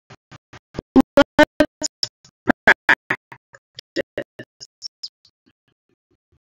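A short instrumental jingle of quick, evenly spaced notes, about five a second, louder in the middle and dying away about five seconds in.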